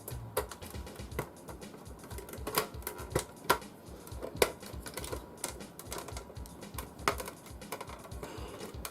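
Irregular clicks and taps of a screwdriver, screws and case parts being handled while a computer case is put back together.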